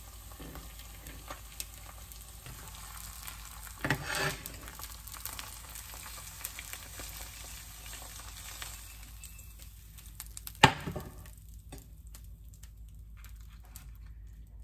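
Fried egg sizzling in oil in a nonstick frying pan, a steady hiss that dies away about eleven seconds in. A short clatter comes about four seconds in, and a sharp knock, the loudest sound, just before the sizzle stops.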